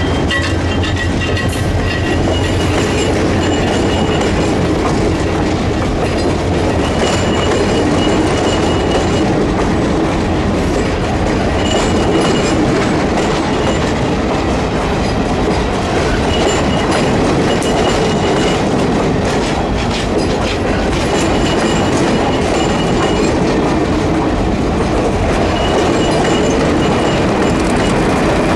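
Railroad passenger cars rolling past at close range: a steady rumble of wheels on rail with clickety-clack over the joints. Brief high-pitched wheel squeals come and go several times.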